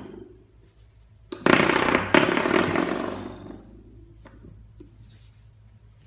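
Spring door stopper flicked and set vibrating, a buzzy twang that starts about a second and a half in, is struck again a moment later and fades over about two seconds.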